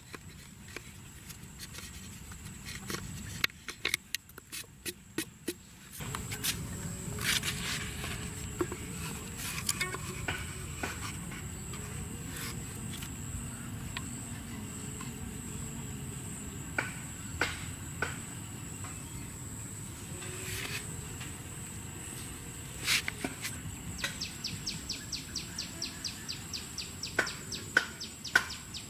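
Insects trilling steadily, with scattered sharp clicks and a fast run of even clicks near the end.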